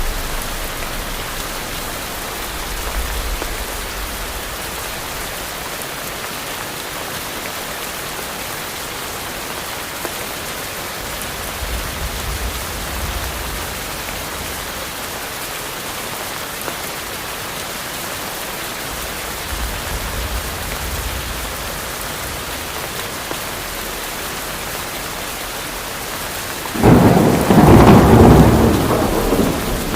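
Steady rain falling on tropical forest, a constant even hiss, with soft low rumbles of distant thunder a few times. Near the end a loud clap of thunder breaks in and rolls on for about three seconds.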